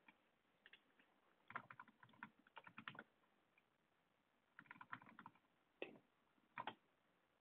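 Computer keyboard typing, faint: two runs of quick keystrokes, one starting about a second and a half in and another near five seconds, followed by two single taps.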